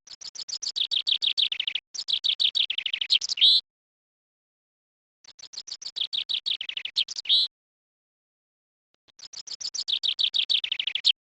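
A songbird singing four song phrases, each a rapid run of high notes that drops in pitch and ends in a short flourish, with pauses between them.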